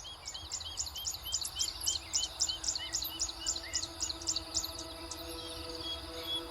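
A songbird singing a fast run of repeated high chirping notes, about four a second, stopping about four and a half seconds in. Soft music with long held tones rises underneath.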